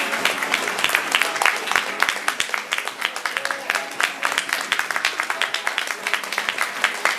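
A roomful of guests clapping after a toast: dense, irregular hand claps, with chatter and background music underneath.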